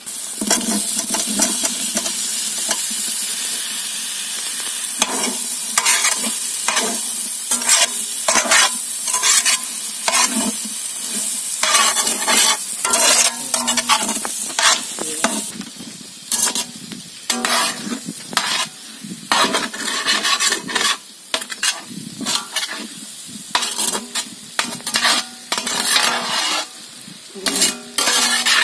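Cut drumsticks (moringa pods) going into hot oil and masala in a wide black kadai, sizzling strongly for the first few seconds. They are then stirred with a metal spatula that scrapes the pan in many short strokes while the sizzle dies down.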